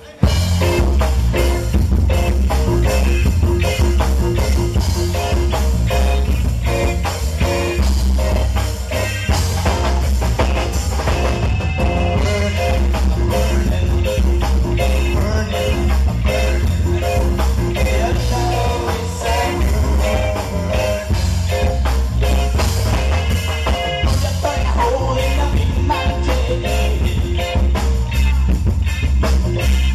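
Live band playing loud amplified rock music: drum kit, electric guitar and bass with a singer.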